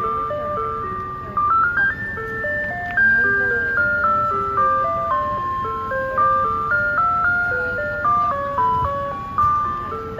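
Background music: a quick, cheerful tune of clear single notes jumping up and down, like an ice cream truck jingle.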